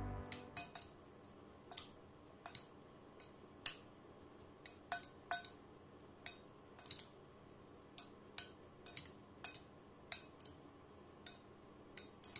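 A spoon clinking against a glass bowl while stirring marinated chicken gizzards: irregular sharp clinks, roughly two a second, a few of them ringing briefly.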